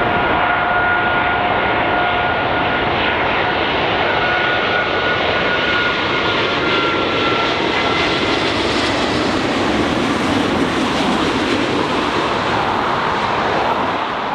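Boeing E-4B's four General Electric CF6-50E2 turbofans running as the jet rolls out after landing: a steady loud roar with a faint whine that drifts slightly lower in pitch over the first half.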